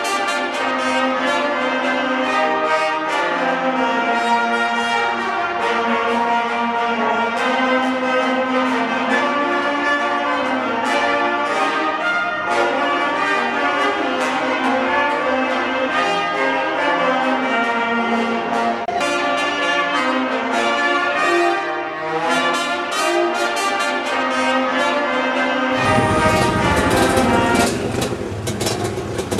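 Small wind band of trumpets, trombone and saxophone playing a tune together. About three and a half seconds before the end the music stops suddenly and gives way to the noise of a dirt bike engine running.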